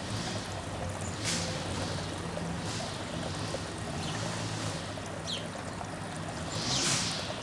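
Backyard outdoor ambience: a steady low hum with swelling whooshes of hiss, and a short bird chirp about five seconds in.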